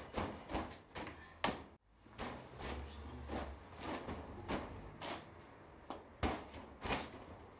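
A run of sharp, irregular knocks and clicks, about two or three a second, over a faint low hum.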